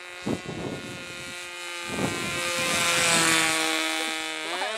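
RC model plane's motor and propeller whining steadily in flight, growing louder toward a peak about three seconds in as it comes in low, then rising in pitch near the end.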